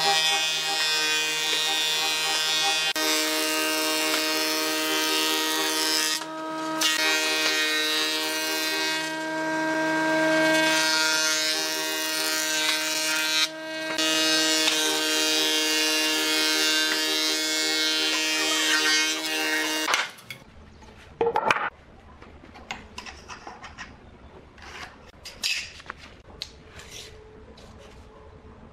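Industrial wood planer running and planing pine boards, a steady mechanical whine under the hiss of the cutters, with two brief dips. About two-thirds of the way through it cuts off suddenly, leaving light taps and rustles of boards being handled.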